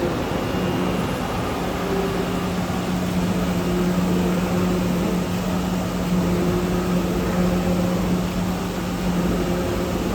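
CNC oscillating knife cutting machine running: a steady mechanical hum and hiss with a constant low drone, and shorter, higher whines that come and go.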